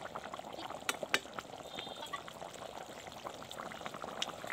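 Egg curry gravy boiling in a steel kadhai: a steady bubbling with a scatter of small pops, and a couple of sharper clicks about a second in.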